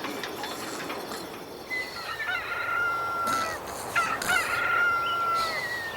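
Rooster crowing twice. Each crow is a short rising note drawn out into a long held tone.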